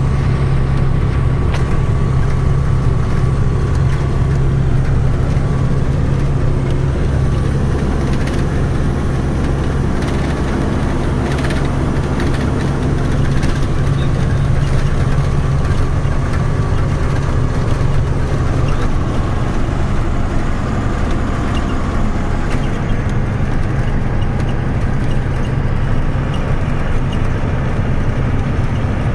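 Tata 3118 truck's diesel engine running steadily at cruising speed, with tyre and road noise, heard from inside the cab.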